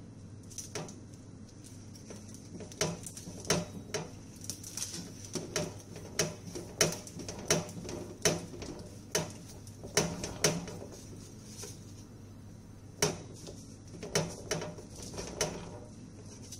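Kitchen knife cutting through rolled filo pastry baklava, the blade knocking on the surface beneath: a string of sharp clicks and knocks, irregular and in clusters with short pauses between cuts.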